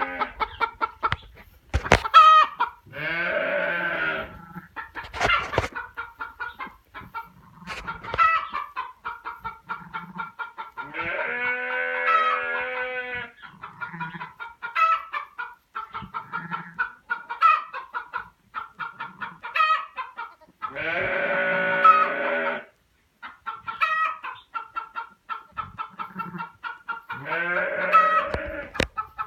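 Chickens clucking in rapid runs of short notes, broken about four times by a longer drawn-out call lasting one to two seconds.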